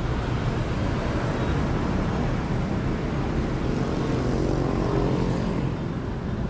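Motorbike street traffic running steadily, with one engine passing close about four to five seconds in.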